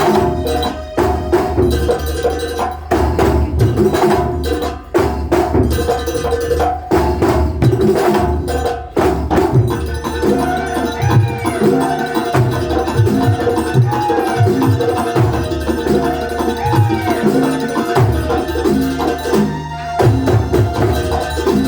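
Live Banyuwangi kuntulan music: frame drums and drums beating a dense, driving rhythm. About halfway through, a higher melodic line with short sliding notes comes in over the percussion.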